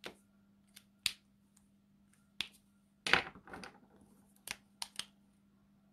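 Sharp plastic clicks of Copic alcohol markers being handled, capped and uncapped while markers are swapped: a handful of separate clicks, with a short clatter of several knocks about three seconds in.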